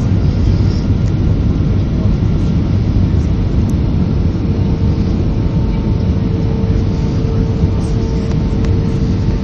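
Steady roar of an Airbus A320's engines and rushing air heard inside the passenger cabin on approach, with flaps extended. A faint steady hum joins about halfway through.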